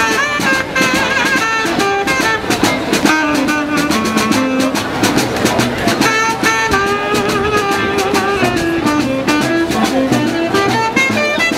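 A street band playing a lively, upbeat tune, with several melody lines moving over a steady drum beat.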